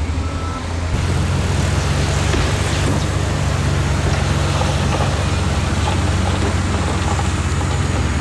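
Heavy diesel engine of earthmoving machinery running steadily, rising to a heavier, louder note about a second in and holding there. A short reversing beep sounds at the start.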